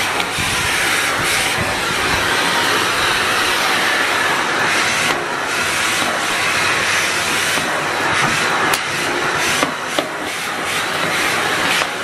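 Shark upright vacuum cleaner running, a steady motor sound and rush of air, its suction drawn through the hose and wand, with a few short clicks in the second half.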